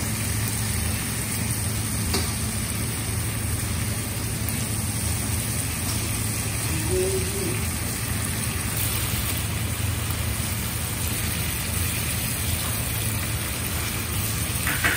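Spice paste with chilies sizzling as it fries in oil in a wok, stirred and scraped with a wooden spatula, over a steady low hum.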